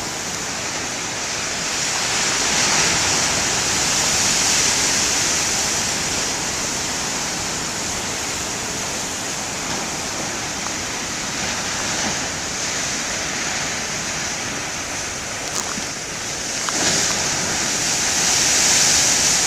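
Large storm waves breaking and rushing against the shore: a continuous wash of surf that swells twice, early and again near the end.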